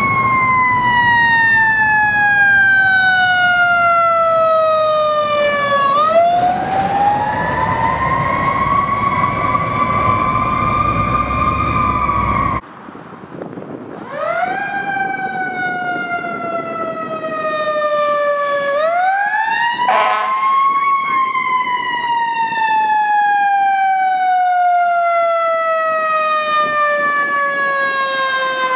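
Fire apparatus siren wailing: the pitch slides slowly down over several seconds, then sweeps quickly back up, over and over. A heavy low rumble sits under the first siren; after an abrupt cut about twelve seconds in, a second fire engine's siren wails in the same slow fall-and-rise pattern.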